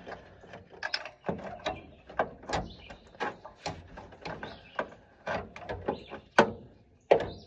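Irregular metallic clicks and knocks of a ratchet, socket and extension being fitted and worked onto a spark plug in a cramped engine bay, with the socket not yet seated on the plug.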